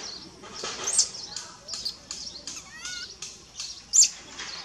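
Baby monkey crying: a rapid run of short high-pitched squeaks and squeals, with two sharp louder squeals about a second in and near the end, and a few wavering lower cries in between.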